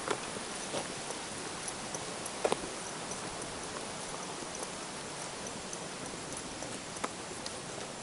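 Steady outdoor hiss with a few scattered light taps of footsteps on a paved trail, the loudest a quick double tap about two and a half seconds in.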